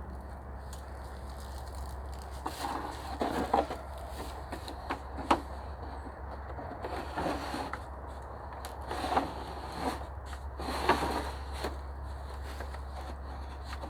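Irregular rustling and crackling of dry sticks and leaves, in uneven clusters with a few sharp snaps or knocks, over a steady low hum.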